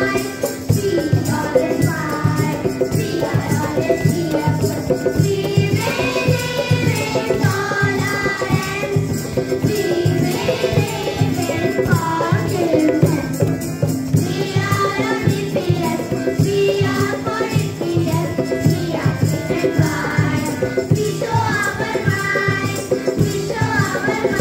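A group of children singing a song together in chorus into microphones, over a steady rhythmic beat with a jingling, tambourine-like percussion.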